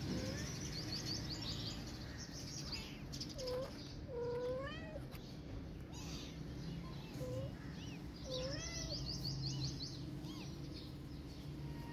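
Kitten meowing several times, short high mews that rise and fall in pitch, the longest about four seconds in.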